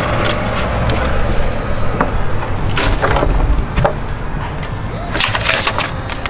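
Hard-sided Bison 25-quart rotomolded cooler being opened: its rubber latch unhooked and the plastic lid lifted, with scattered clacks and knocks of plastic and crinkling paper inserts, over a low steady rumble.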